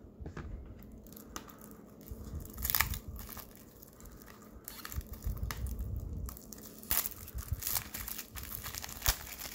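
Clear plastic shrink-wrap crinkling and tearing as it is peeled off a Blu-ray case, in irregular crackles with a few louder ones.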